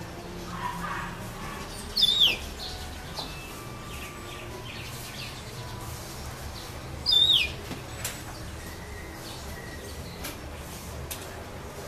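Yellow-fronted canary (serin du pays) giving two loud, short, down-slurred whistled calls about five seconds apart, with faint chirps and small ticks in between.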